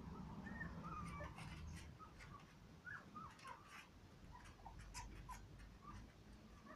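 Young puppies whimpering faintly: short, high-pitched squeaks scattered throughout, with a few soft ticks.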